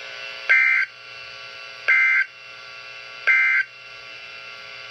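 Emergency Alert System SAME end-of-message data bursts: three short two-tone digital warbles about a second and a half apart. They mark the end of the special marine warning, over a faint steady radio hiss and hum.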